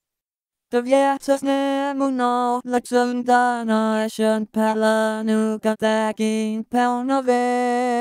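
Vocaloid synthesized singing voice singing a Tirëlat phrase in steady held notes, broken briefly by consonants. The voice starts under a second in and is a demonstration of the Tirëlat central vowel ë, between the vowels of 'bud' and 'bird', sung by an English Vocaloid.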